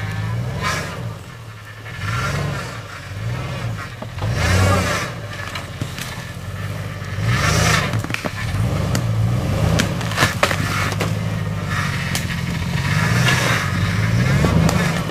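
Chevrolet car engine revving up and down again and again while driving off-road, with a few knocks and scrapes from the vehicle over rough ground.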